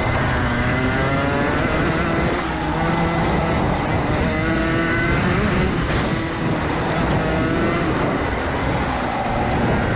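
Rotax Max Evo 125cc single-cylinder two-stroke kart engine at racing speed, heard on board. Its pitch climbs several times as the kart accelerates out of the corners, dropping briefly twice as the throttle eases.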